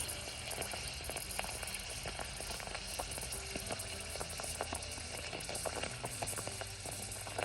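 A lit Zippo Typhoon stormproof match burning on the surface of water, fizzing and bubbling, with many small irregular crackles and pops as the flame comes up through the air bubbles.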